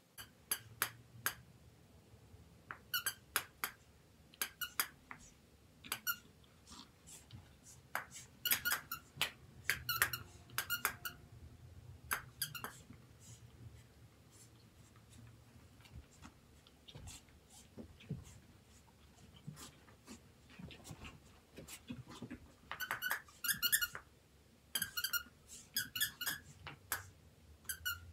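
Squeaky plush dog toy squeaking in quick bursts as a Shih Tzu puppy bites and shakes it. The squeaks come in several clusters of short, same-pitched squeaks, with quieter stretches between.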